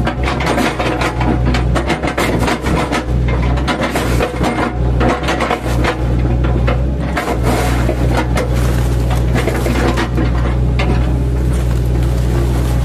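Mini excavator's diesel engine running steadily under load, with irregular knocks, crunches and scraping as the machine chips up felled oil palm trunks.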